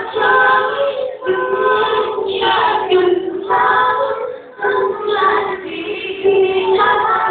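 Choir singing a song with long held notes, phrase by phrase, with short breaks between phrases.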